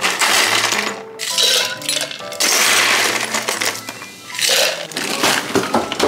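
Ice cubes scooped from a freezer ice bin clatter and clink into a steel insulated tumbler in several bursts, over background music.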